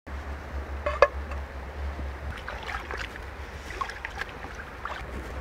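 Shallow stream water trickling and splashing over rocks, with a sharp click about a second in and smaller splashes and clicks as hands move a slab through the water.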